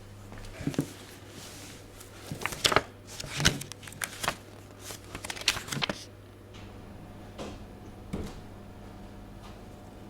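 A run of sharp clicks and knocks, dense for the first six seconds and then only a few scattered ones, over a faint steady hum.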